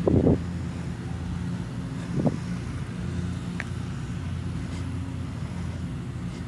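A steady low hum with an engine-like drone, with a brief soft sound at the start and another about two seconds in.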